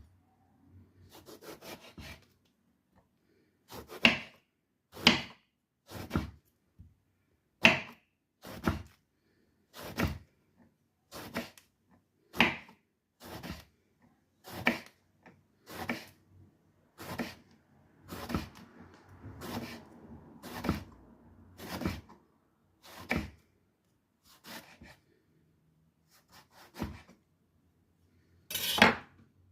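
Kitchen knife cutting eggplant on a wooden cutting board: separate short strokes, roughly one a second with pauses between runs, and a louder knock near the end.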